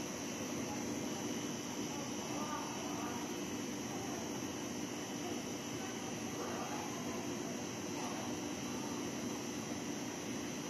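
Forklift engine running steadily, a constant drone that holds the same level throughout, with faint voices in the background.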